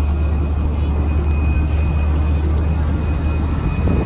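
Steady low drone of a passenger ferry's engine, with a faint high whine and the rush of churned water and wind over it.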